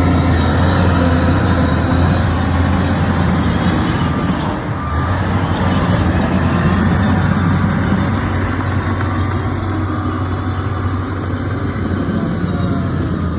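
Bulldozer's heavy diesel engine running steadily under load, a deep constant hum with the clatter of the machine working.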